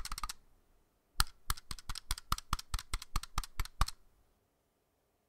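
Keys on a computer keyboard pressed in a quick flurry at the start, then a run of rapid, fairly even keystrokes, about six a second, from about a second in until nearly four seconds.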